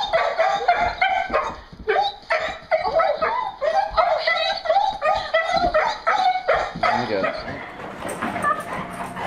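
Dog whining and yelping in rapid, high-pitched cries, several a second, in an excited greeting of its returning owner; the cries die away near the end.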